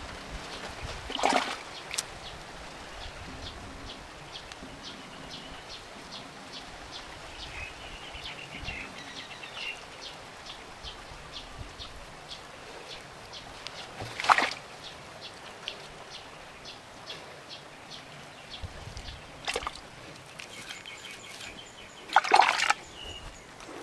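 Hands smoothing and pressing wet clay, soft squelching with a few louder wet slaps. A steady series of faint short chirps, about two a second, runs in the background.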